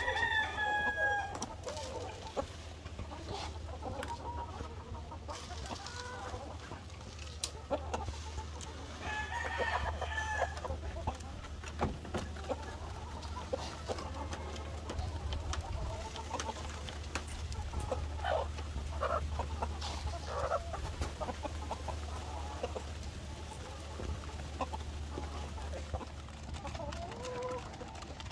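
A flock of hens clucking at feeding time, with a rooster crowing at the very start and again about nine seconds in. Scattered light taps on the bamboo feed trough run throughout.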